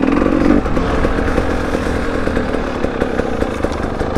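KTM 250 two-stroke dirt bike engine running steadily under light throttle while being ridden.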